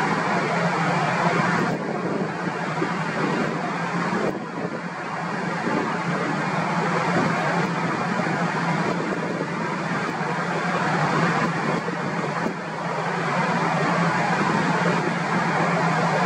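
Steady engine noise: a continuous rush with a constant low hum underneath, dipping slightly a few times.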